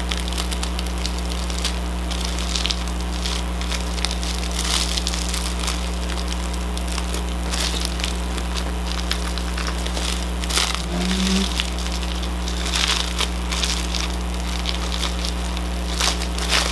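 Clear plastic wrapping on a rolled diamond painting canvas crinkling and crackling in irregular spurts as it is handled and pulled open. Underneath runs a steady low hum.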